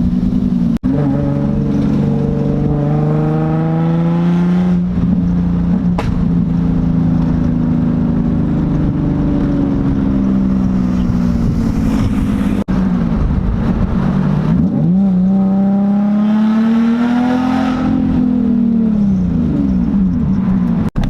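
Car engine accelerating and easing off in long sweeps, its pitch climbing and then falling several times, with a couple of abrupt cuts.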